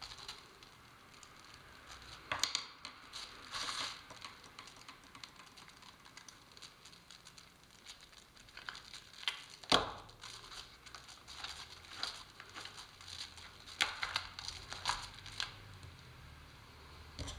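Plastic sheeting crinkling and rustling as it is handled, in short irregular bursts, with a sharp knock about ten seconds in.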